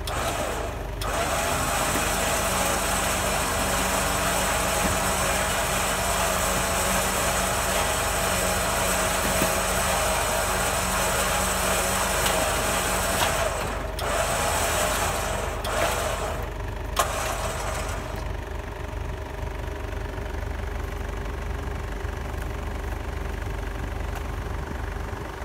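A vehicle-mounted winch runs steadily, hauling a loaded wood sled up a slope on its cable, over the vehicle's idling engine. The winch cuts out briefly twice around the middle, then stops about three-quarters of the way through, leaving only the engine idling.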